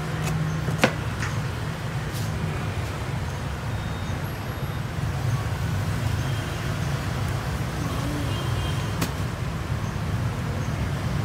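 Steady rumble of road traffic, with a sharp knock just under a second in and another about nine seconds in.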